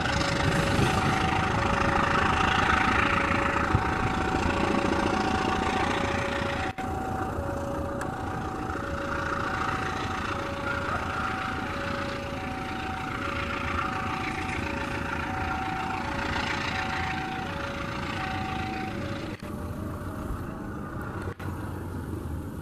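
Level-crossing warning alarm sounding an alternating two-tone signal, high then low, about one tone every half second, which stops a few seconds before the end. Underneath, a departing passenger train rolls away along the rails.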